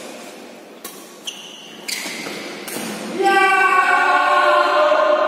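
A few sharp racket hits on a shuttlecock in a badminton rally. Then, about three seconds in, a loud voice starts chanting in long held notes and drowns out the play.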